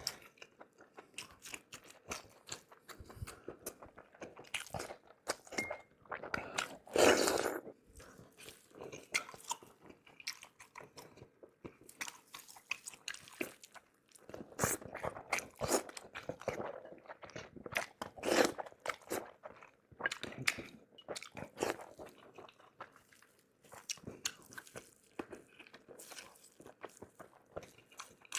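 Close-miked chewing and crunching of roasted pork head, irregular bites and crunches coming every second or so, the loudest crunch about seven seconds in.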